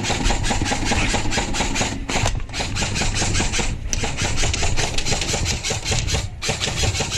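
Airsoft electric gun firing on full auto in long bursts, its gearbox cycling rapidly, with short breaks about two, four and six seconds in.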